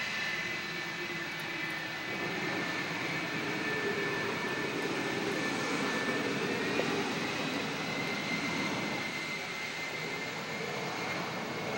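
F-4 Phantom jet engines running during landing rollout: a steady jet whine with high tones over a broad rushing noise, the lower noise growing a little louder about three seconds in.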